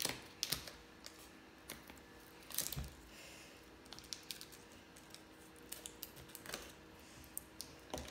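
Scissors snipping and clicking as they cut through a toy's plastic and foil wrapping: a run of small, irregular clicks, with a duller knock about three seconds in.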